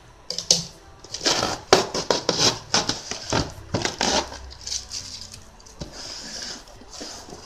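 Scissors snipping through plastic parcel wrapping, with the plastic crackling and rustling: a run of quick sharp snips and crinkles for the first four seconds or so, then a softer rustle.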